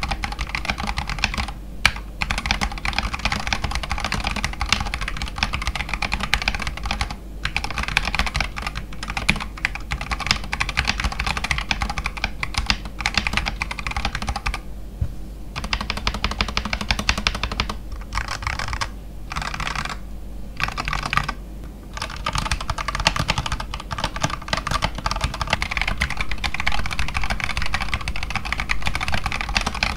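Akko 5108 mechanical keyboard being typed on fast and continuously, a dense stream of key clicks, broken by a few short pauses around the middle.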